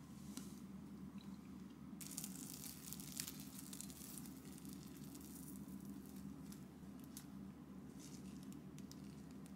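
Thick slice of crusty grilled toast torn apart by hand, the crisp crust crackling and crunching from about two seconds in, with smaller crackles later, over a low steady hum. Thin plastic food gloves crinkle along with it.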